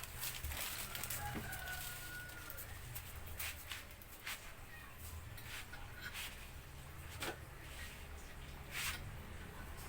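A rooster crowing faintly in the distance about a second and a half in, over a steady low hum, with a few scattered sharp clicks.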